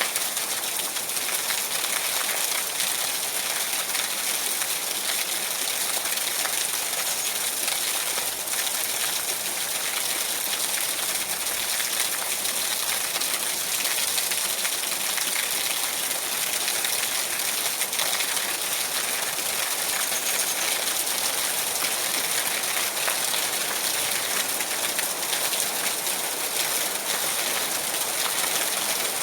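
Steady rain falling, an even hiss with many fine drop ticks and no change in strength.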